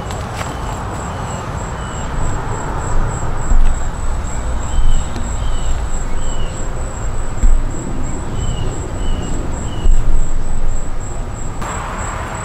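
Outdoor garden ambience: a bird repeats a set of three short, quick falling chirps three times over a steady high pulsing insect trill, with uneven low rumbling gusts that peak several times.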